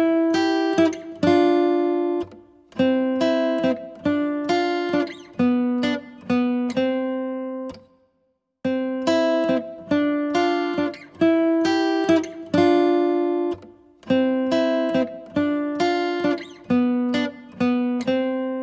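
Background music of a plucked acoustic guitar playing repeating chords, each note ringing and fading. The phrase breaks off briefly about eight seconds in and again near the end.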